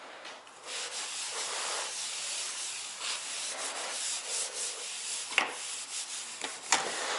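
Steady hand rubbing on a work surface, likely wiping up oil-soaked metal dust from propeller work, with two sharp knocks near the end.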